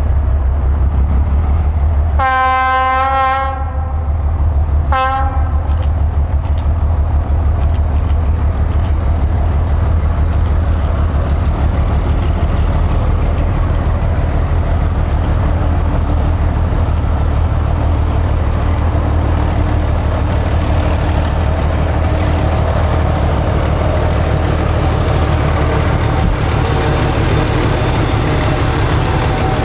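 S200 diesel locomotive hauling a container train, its engine a steady low drone, sounding its horn: one long blast about two seconds in and a short one about five seconds in. Near the end the container wagons roll past.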